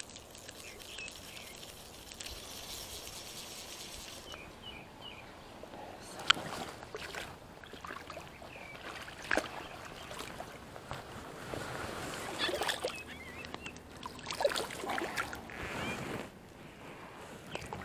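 Water splashing in irregular bursts from about six seconds in, a hooked carp thrashing in shallow river water.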